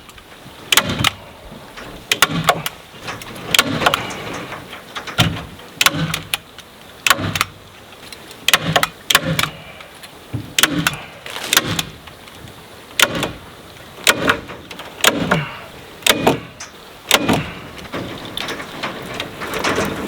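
Staples being driven into the coop's wooden frame to fasten chicken wire: a run of sharp snaps, roughly one a second, some coming in quick pairs.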